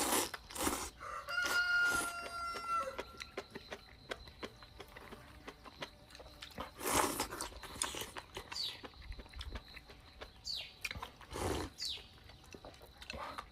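A rooster crows once, a drawn-out call of about two seconds starting a second in, with a few short high calls later. Bites and chewing are heard between them.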